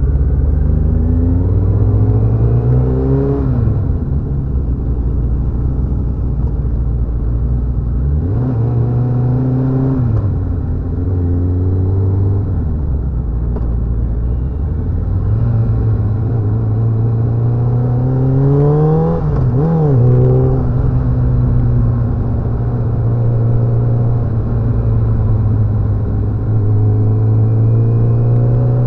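Motorcycle engine riding in a procession, rising in pitch as it accelerates and falling back several times. It makes one longer climb that peaks just past the middle, then holds a steady pitch through the last third.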